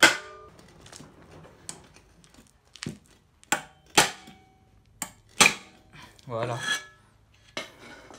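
Sharp metallic knocks and clinks of tools on a 196cc four-stroke kart engine's flywheel as it is worked off the crankshaft, about seven irregular strikes, some ringing briefly.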